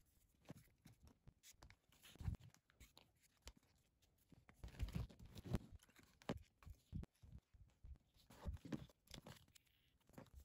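Faint, irregular rustles and small clicks of leather being hand-stitched: thread drawn through the stitching holes, the leather strip handled, and the needle gripped with pliers.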